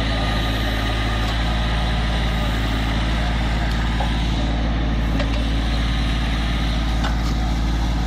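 Kubota B2420 compact tractor's small three-cylinder diesel engine running steadily at an even, unchanging speed.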